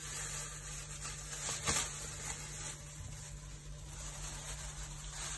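Thin plastic bag rustling as it is opened by hand, with one light knock a little under two seconds in.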